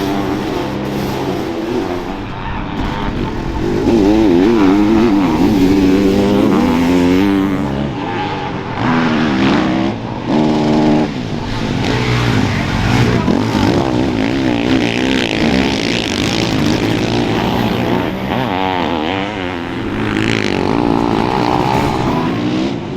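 Motocross racing engines revving hard and easing off, several machines overlapping, the pitch rising and falling with the throttle. Loudest a few seconds in.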